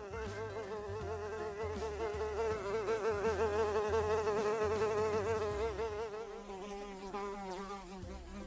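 A fly buzzing in flight: a wavering, high buzz that grows louder through the middle and fades away near the end.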